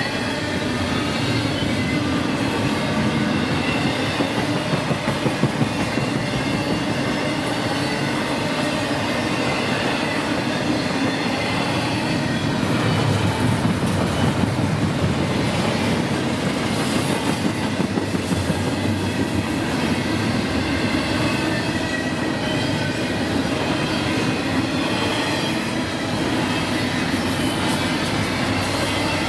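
Train cars rolling past on the track, wheels clacking over the rails with faint high squealing.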